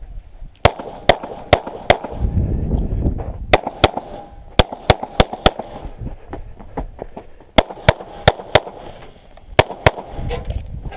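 Pistol shots fired in rapid pairs and strings, about sixteen in all in four groups with short gaps between them, as a shooter engages targets on a USPSA action-pistol stage after the start signal.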